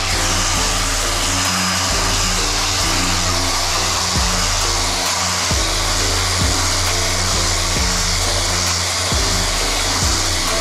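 A power sander runs steadily, smoothing cured body filler, under background music that has a bass line and a steady beat.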